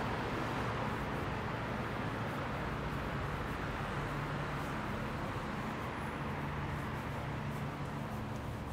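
Steady city street noise: a constant wash of traffic with a low steady hum underneath.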